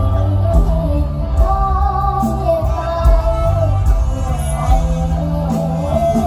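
A young girl singing a mor lam song into a microphone over amplified band music, with a wavering vocal melody above a steady bass line and beat.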